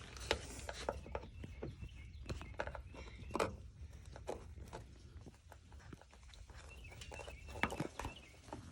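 Scattered light clicks and short scrapes of a hand tool working at a Nissan Rogue's exterior door handle to pry a part loose.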